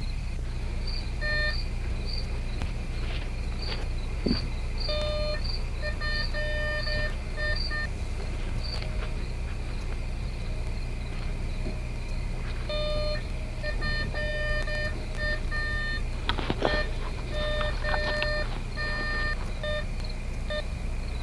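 Metal detector beeping in short, repeated tones in patches as it is swept over the ground, the signal of a buried metal target. Under it runs a steady low hum and hiss, with a brief scrape or knock about three-quarters of the way through.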